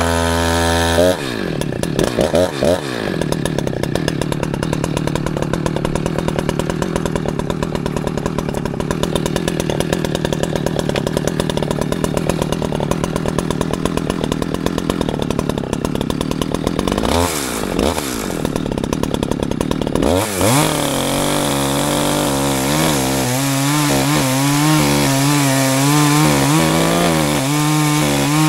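Echo CS-620PW two-stroke chainsaw revving up from idle about a second in and running hard at high revs, cutting into a tree stump, with two brief dips in revs. About twenty seconds in the engine note drops to a lower, wavering pitch.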